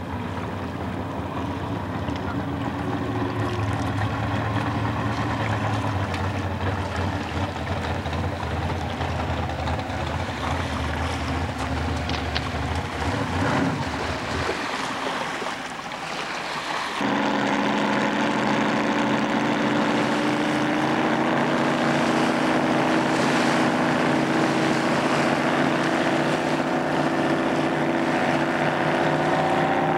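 Racing outboard boat engines running at speed on the water, a steady engine note with a sudden change about halfway through, then another steady engine note that rises slightly near the end.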